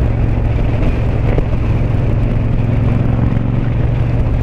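Yamaha MT-07's parallel-twin engine through an Akrapovic 2-into-1 carbon exhaust, running at a steady cruise with no revving, mixed with wind rush on the helmet microphone.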